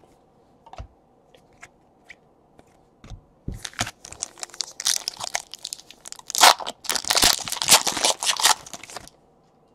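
Thin plastic crinkling and rustling as a trading card is handled and slipped into a plastic sleeve: a few faint ticks at first, then a dense run of crackles from about three and a half seconds in that stops shortly before the end.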